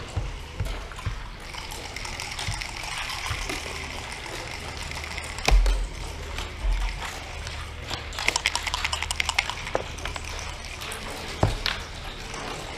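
Backgammon checkers clacking onto a wooden board as a player moves them, with a sharp click about halfway through. Near the end, a quick run of clicking dice rattling, then the dice landing on the board.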